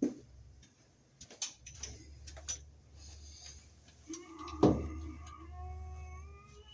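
A few sharp knocks and clicks of a plastic electrical box being handled, the loudest about two-thirds of the way through. From about four seconds in there is a drawn-out pitched tone that rises slightly.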